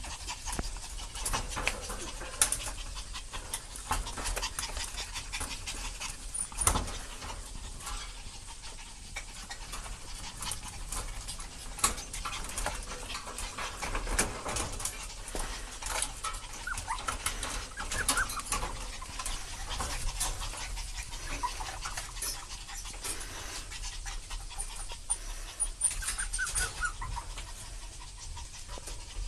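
Chihuahua mother and puppies panting and scrabbling while they are handled, with a few short high whimpers. Handling rustles and a few sharp knocks run throughout.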